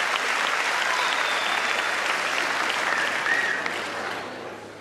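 Theatre audience applauding, dying away over the last second.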